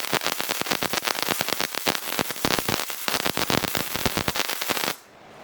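Gasless flux-core MIG welding arc, a fast, irregular crackling and spitting that cuts off abruptly about five seconds in.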